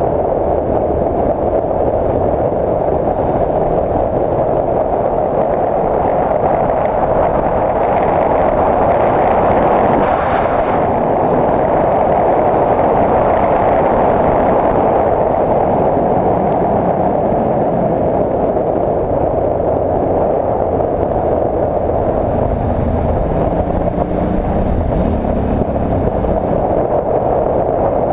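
Adventure motorcycle riding along a gravel road: a steady rush of wind on the microphone mixed with engine and tyre noise.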